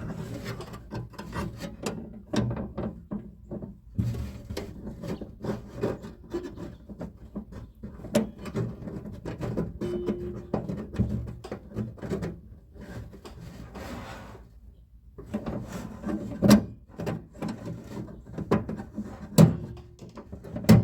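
Hands working a retaining clip onto the door lock and handle inside a car door: irregular metal clicks, knocks and scraping, with two sharper, louder clicks in the second half.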